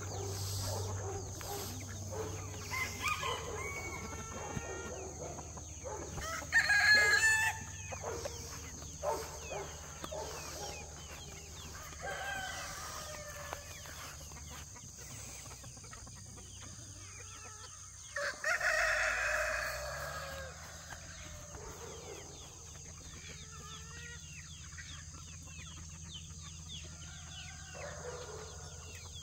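Free-range flock of chickens clucking, with roosters crowing a couple of times, about 7 and 19 seconds in; the crows are the loudest sounds.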